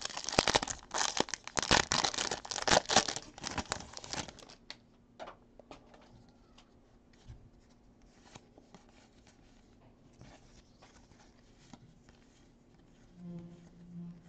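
Baseball card pack wrapper being torn open and crinkled for about four and a half seconds, then faint scattered ticks and rustles of cards being handled.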